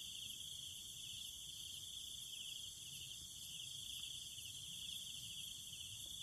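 Faint night chorus of crickets: a steady high trill, with a higher, thinner hiss of other insects above it.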